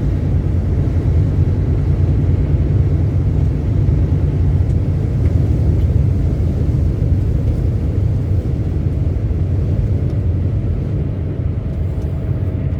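Semi truck driving, with a steady low rumble of engine and road noise.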